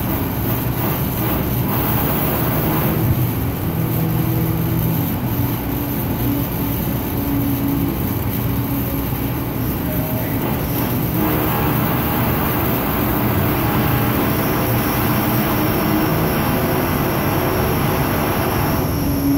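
A steady engine rumble with a low hum, growing noisier from about eleven seconds in until near the end.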